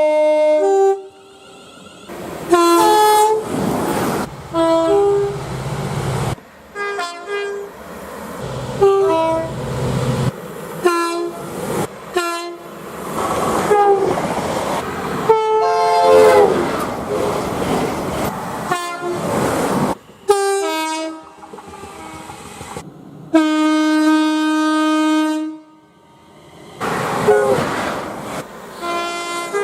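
A rapid series of train horn blasts from different trains, spliced one after another: many short soundings, several stepping between two pitches, and one long steady blast of about two seconds near the end. Each segment cuts off abruptly, with the rumble of trains running on the rails between blasts.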